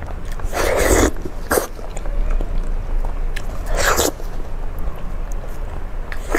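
Close-miked eating: a person biting and sucking meat off a bone, with three short, loud wet mouth noises.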